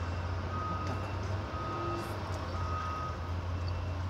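Vehicle reversing alarm sounding three even beeps about a second apart, over a steady low engine hum.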